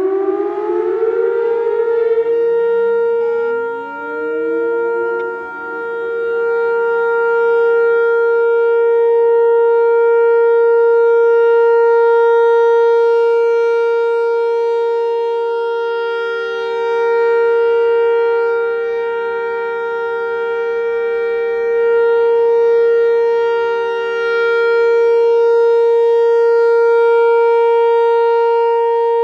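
Whelen Vortex outdoor warning siren winding up and then holding a steady two-tone wail. The higher tone reaches full pitch in the first second or two, and a second, lower tone rises to join it within about six seconds. The sound then swells and fades slowly as the siren head rotates.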